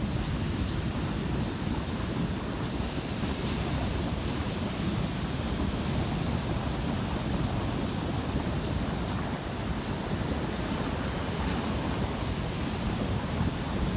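Heavy surf breaking and washing up a sand beach: a steady, dense rush with a strong low rumble, buffeted by wind on the microphone. Short high ticks come a few times a second over it.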